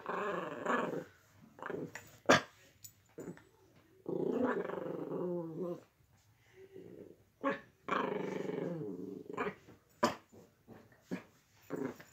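A dog growling in three long stretches of a second or two each, with a few short sharp barks between them, as it reacts to a computer mouse being pushed at it.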